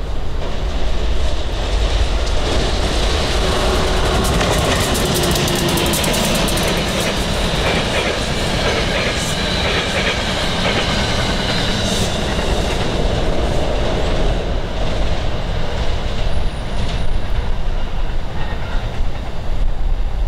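Electric passenger train, a New Jersey Transit consist, passing at speed close by: a loud, steady rush of wheel and rail noise with clickety-clack over the rail joints and a faint high wheel whine.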